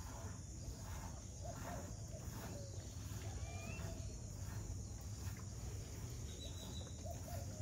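A steady high-pitched insect drone over a low rumble, with a short rising bird chirp about three seconds in.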